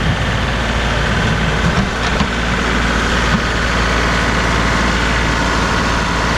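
Compact tractor's diesel engine running steadily, a continuous low rumble with a steady whine above it.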